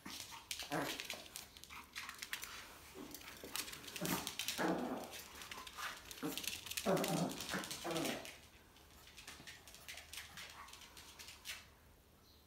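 Small Spitz dog playing with a ball, giving a series of short yips and growl-like sounds, loudest in the middle, among many small clicks of the ball and claws on the hard floor.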